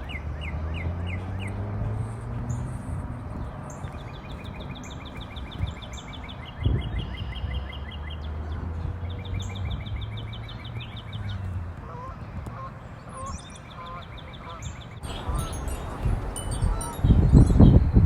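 Birds calling in rapid ticking trills over a low, steady drone that comes in twice. Near the end, wind rumbles loudly across the microphone.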